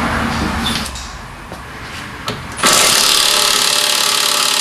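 Impact wrench hammering on a stubborn bolt under the car for about two seconds, starting a little over halfway in. The bolt does not break loose readily, calling for a bigger gun or a higher setting. Before it come a few light clicks of tools.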